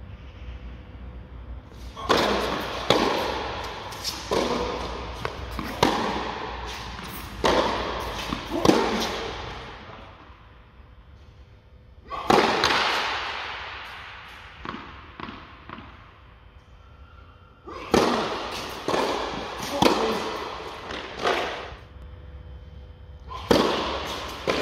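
Tennis ball struck by rackets and bouncing on the court during rallies, each sharp hit followed by reverberation in the large hall. The shots come in runs of several hits with pauses between points.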